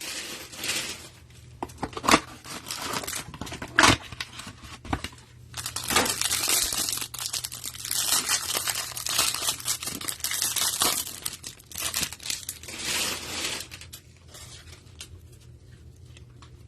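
A trading-card hanger box being torn open: tearing cardboard and crinkling plastic wrapping, in irregular rustles and scrapes with a few sharp clicks. It dies down to faint handling near the end.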